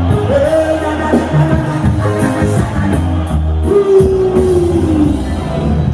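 Live band music with heavy bass and drums, with a long, slowly falling note about four seconds in.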